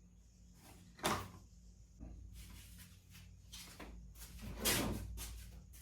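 Wooden parts being handled and test-fitted against a wing spar: a sharp knock about a second in, scattered lighter clicks and scrapes, and a louder knock with a scrape past the middle.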